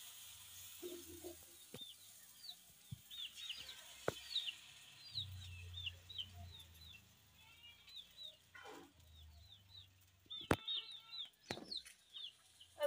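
Chickens calling: many short, high chirps repeating throughout, faint, with a couple of sharp clicks near the end.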